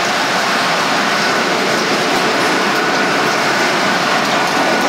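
Jet engines of an Airbus A330-243, Rolls-Royce Trent 700 turbofans, running: a steady rushing noise with a faint high whine.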